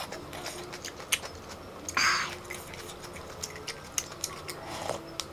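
Close-up eating sounds: sipping spicy noodle soup from a wooden spoon and chewing, with small wet mouth clicks and one short slurp about two seconds in.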